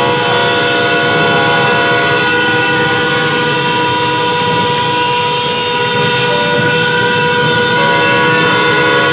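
Many motorcycle horns sounding together without a break, a dense chord of held tones at different pitches, with a few wavering in pitch over the top.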